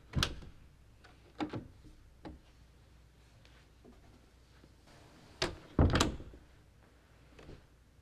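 A few scattered knocks and thumps, then an interior door being opened and shut, with two sharp knocks close together about five and a half seconds in.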